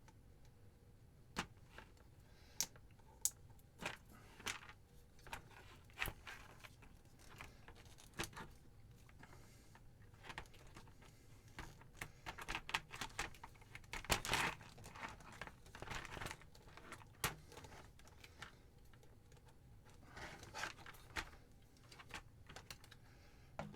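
Irregular clicks, taps and crinkling as the parts of a Corsair H55 water cooler are handled and taken apart, with a busier run of handling noise about halfway through.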